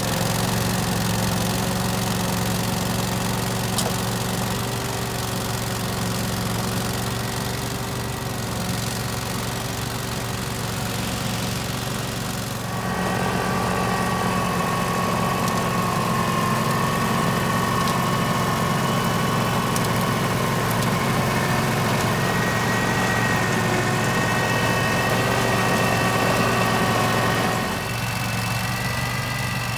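Husqvarna Rider 419TxS AWD ride-on's engine running steadily under load while it drives the front-mounted snow blower throwing snow. The engine's tone changes abruptly twice, about 13 seconds in and again near the end.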